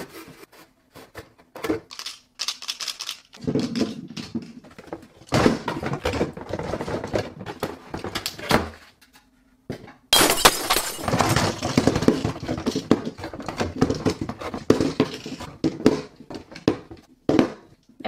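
Cardboard box and plastic Mini Brands capsule balls being handled: irregular knocks, rattles and scrapes, with a brief pause a little past halfway and then a denser run of clattering.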